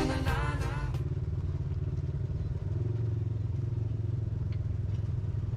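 ATV engine running with a steady low drone, after a music track ends about a second in.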